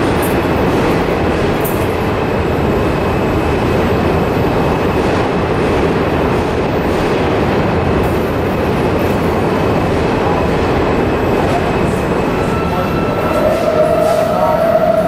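New York City Subway R68 train running through curves and switches, wheels clacking over the track joints. A brief wheel squeal rises on the curve near the end.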